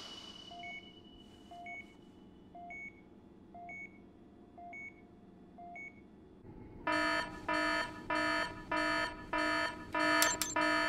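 A soft electronic monitor beep, two quick notes about once a second, like a patient monitor. About seven seconds in, a loud pulsing alarm takes over, sounding about twice a second: a spaceship alert sound effect.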